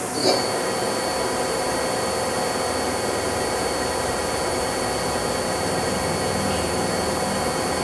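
Daewoo DMV-500 vertical machining center spindle starting up and running steadily at 1,000 RPM, a high whine and a lower hum holding steady from about a third of a second in.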